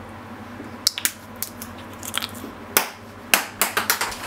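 A plastic-capped condiment bottle handled over a bowl of food: a string of sharp, irregular clicks and crackles, bunching into a quick cluster near the end.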